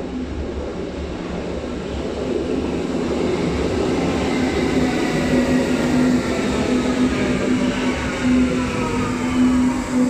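Berlin U-Bahn class H01 electric train pulling into an underground station, its rumble growing louder as it comes alongside the platform. From about four seconds in, several whines fall in pitch as the train slows to stop, over a steady hum.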